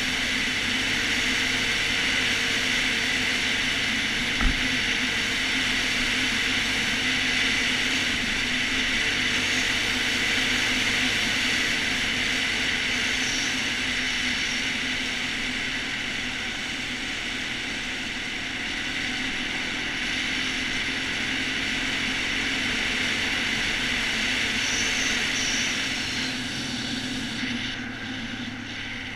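ATV engine running at a steady speed as the quad is ridden, a constant drone with a single brief knock about four seconds in; the sound eases somewhat near the end.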